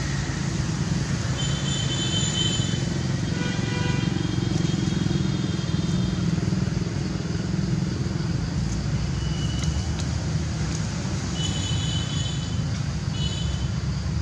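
Steady low outdoor rumble, like distant traffic or wind, with several short high-pitched calls coming and going over it.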